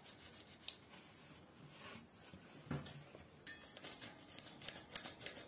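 Faint scrubbing of a brush on a bicycle hub as the wheel is turned, with scattered light clicks and a soft knock near the middle.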